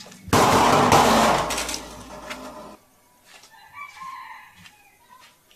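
A loud, harsh animal call about two seconds long that cuts off abruptly, followed by a few faint short chirps.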